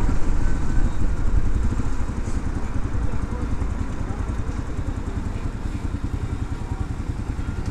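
Motorcycle engine running as the bike slows down and pulls up; it gets quieter about two seconds in, then carries on at low speed.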